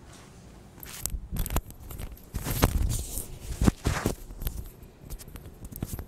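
Handling noise close to the microphone: a string of knocks, clicks and rustles starting about a second in, loudest in the middle. It is someone moving about and handling things at the desk.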